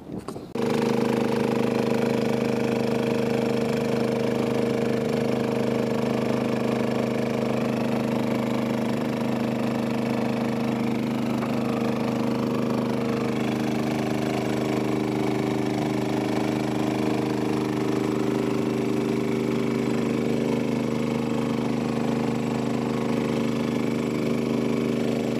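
Small gasoline dredge engine and its pump running steadily at a constant speed on a gold-prospecting canoe dredge.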